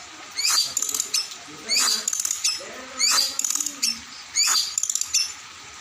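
Songbirds calling: four loud, sharp notes that each sweep down in pitch, a little more than a second apart, with rapid chattering trills between them.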